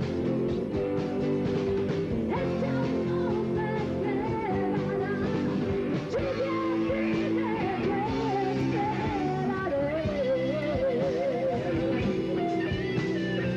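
Live rock band playing a song: steady chords under a wavering lead melody with vibrato.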